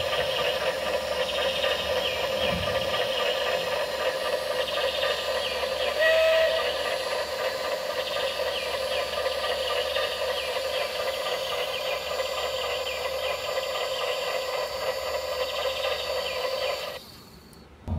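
Steam-engine sound effect for a model steam donkey engine: steady hissing steam with a rhythmic chuffing, and a short whistle toot about six seconds in. It cuts off suddenly about a second before the end.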